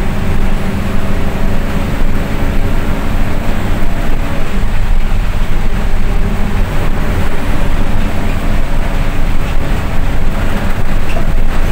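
Bus engine running steadily with road noise, heard from inside the moving bus.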